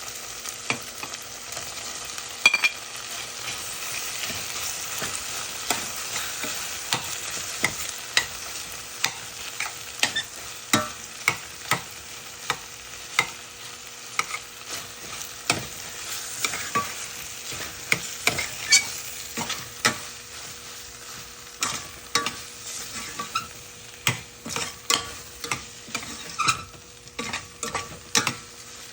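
Salmon frying in a pan with a steady sizzle while a utensil stirs it, clacking against the pan many times at an irregular pace.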